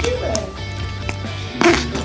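Background music with a steady low bass line, and a short noisy rustle or crackle near the end.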